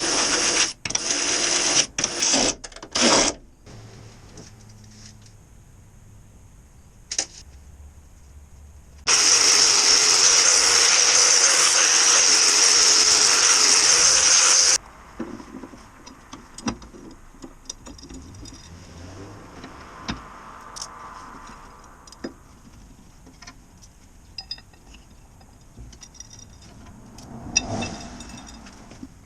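Workshop fabrication noise: a power tool run in several short bursts, later run steadily for about six seconds, with scattered small knocks and clicks between.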